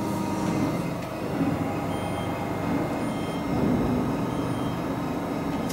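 Steady mechanical hum of a CNC hydraulic flange drilling machine running, a low drone with faint steady tones.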